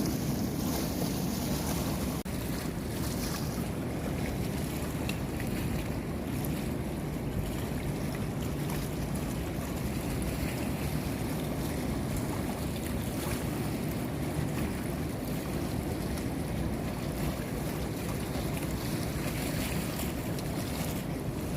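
Steady rush of water, with wind buffeting the microphone.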